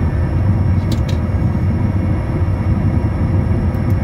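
Steady rumble of a Bombardier Challenger 350 business jet rolling along the runway after landing: its Honeywell HTF7350 turbofans running and its wheels on the concrete. There are two short clicks about a second in.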